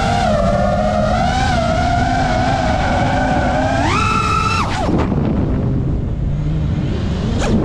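FPV quadcopter's brushless motors whining over a heavy rush of wind and prop wash. The pitch jumps up sharply about four seconds in as the throttle is punched, drops away a second later to a lower, fainter whine, and blips briefly near the end.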